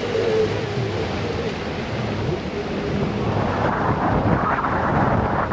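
On board a moving jeep: the engine and tyres make a steady rumble, and wind blows across the microphone. The noise grows rougher and louder about halfway through.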